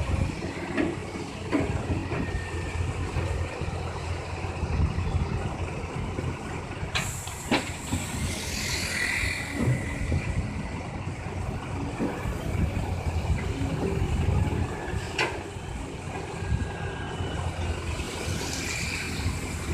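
Caterpillar 320C tracked excavator's diesel engine running steadily under hydraulic load while it digs and loads earth, with a few sharp knocks of bucket and metal and a brief hiss about seven seconds in.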